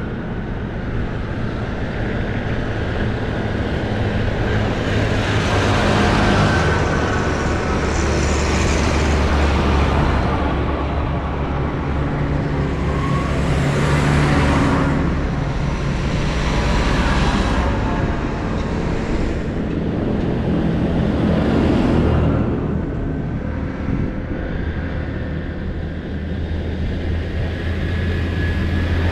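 A procession of large farm tractors driving past one after another: diesel engines running with a steady low drone, and tyre and engine noise swelling and fading several times as each machine goes by.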